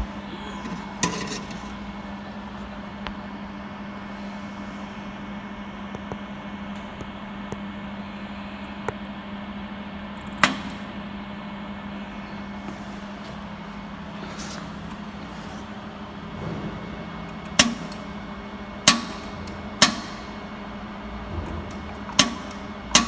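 Flash-lamp jewelry laser welding machine firing single pulses, each a sharp snap, over its steady electrical hum. There is one snap about ten seconds in and then a quicker run of about five near the end; the pulse sound shows that the machine is working.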